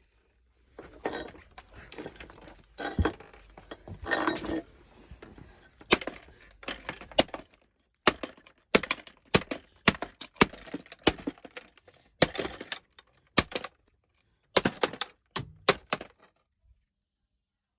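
Hammer blows on the plastic body of a cheap corded stick vacuum: a few seconds of rough crunching, then a long run of sharp knocks, often in quick pairs, ending about two seconds before the end.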